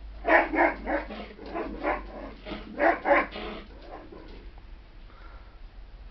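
A dog barking off-screen: a quick run of short barks, about three a second, that stops about four and a half seconds in.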